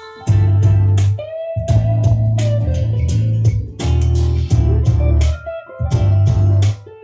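Music with electric guitar, a heavy bass line and a steady beat, played back through Klipsch R-26F floorstanding speakers as a listening demo.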